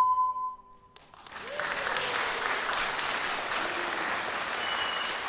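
The last held note of an ocarina, over its accompaniment, fades out about a second in, and then an audience applauds steadily.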